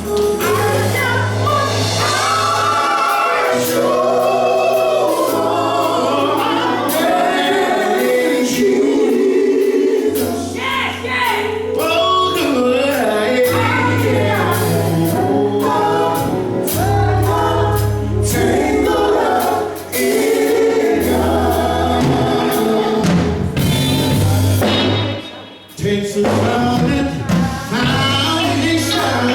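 Gospel quartet singing in harmony with band accompaniment, over deep sustained bass notes. The music drops back briefly near the end.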